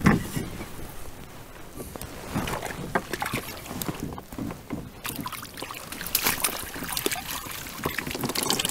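Water sloshing and splashing around a fishing kayak while a hooked fish is brought in, with irregular knocks and clicks of gear and a landing net being handled; the loudest knock comes right at the start.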